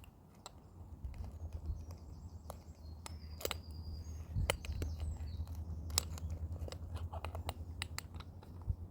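Irregular sharp clicks, crackles and rustling of hands working close to the microphone while rolling a joint, over a steady low hum.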